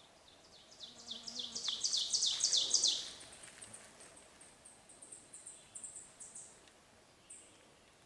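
Songbird song: a quick series of high down-slurred notes that grows louder for about two seconds and then stops, followed by a thin run of short, very high notes.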